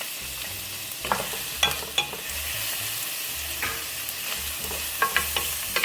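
Chopped onions and garlic sizzling in hot olive oil in a pan, with a utensil knocking against the pan several times as they are stirred.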